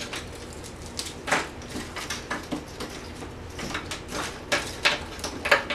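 Frozen shrimp being pulled apart and spread by hand across a metal freeze-dryer tray: irregular clicks, knocks and rustles, with a few sharper clacks about a second in and near the end.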